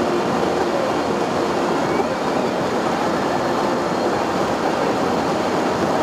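Steady road noise inside a moving car: tyres running on wet pavement, with the engine's hum, heard from the cabin.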